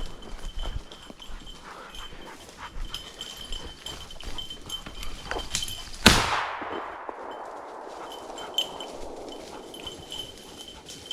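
A single shotgun shot about six seconds in, its report rolling away over the next two to three seconds. Before it, brush rustling and a faint steady bell tinkle.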